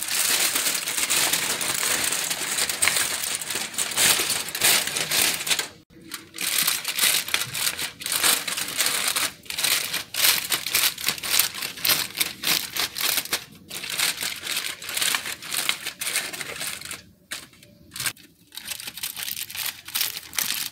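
Aluminium foil crinkling and crackling as hands fold, press and crimp it into a closed packet. The sound stops briefly about six seconds in and again twice near the end.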